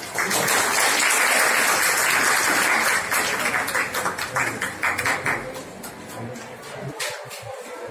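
A small group applauding by hand. The clapping starts all at once and holds dense for about three seconds, then thins into scattered single claps and dies away about five and a half seconds in.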